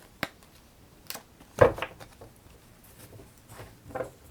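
Tarot cards and deck being handled on a table: a few short taps and knocks, with one louder thump about a second and a half in.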